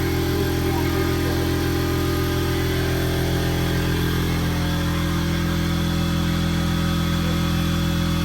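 A motor running steadily, a low hum with a slight shift in pitch about halfway through.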